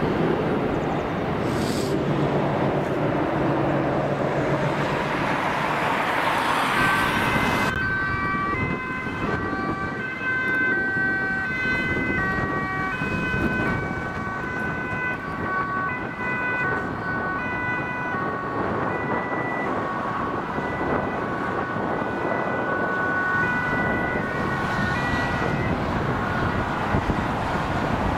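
Motorway traffic noise, then from about eight seconds in, emergency-vehicle sirens sounding steadily. Several of them overlap, their tones switching back and forth between pitches.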